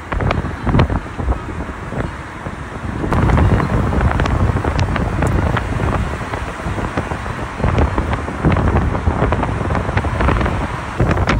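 Wind buffeting the phone's microphone from a moving car, in uneven gusts over a steady low road rumble.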